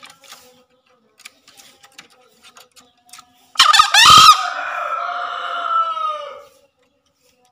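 Green junglefowl rooster crowing once, about three and a half seconds in: a loud, harsh opening that runs into a drawn-out call, falling slightly in pitch, about three seconds in all.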